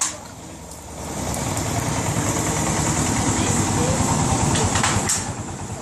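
Motorboat engine running steadily, growing louder about a second in.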